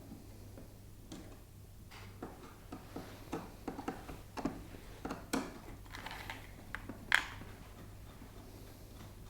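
An irregular run of small clicks and knocks from hands and tools working on the air conditioner's plastic parts, with one sharper knock about seven seconds in, over a steady low hum.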